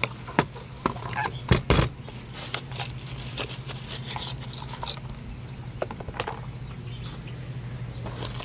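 Handling noise: a smartphone set down on a hard plastic lid and a cardboard box picked up. A quick run of clicks and taps, the loudest two close together about a second and a half in, a few more later, all over a steady low hum.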